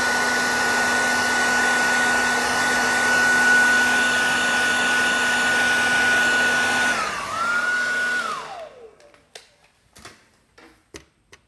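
Heat gun blowing hot air onto a Nexus 5X motherboard to reflow its chips against the bootloop fault, running with a steady whine over the rush of air. It dips briefly, comes back, then is switched off about eight seconds in and winds down with a falling whine, followed by a few faint clicks.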